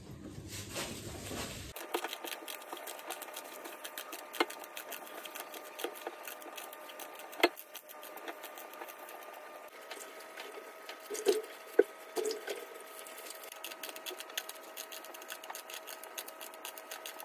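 Small knife cutting through a bunch of pumpkin leaves held in the hand: a quick, continuous run of small crisp cuts and snaps, with a few louder clicks. A faint steady hum lies underneath. In the first second or two, wet leaves splash in a basin of water.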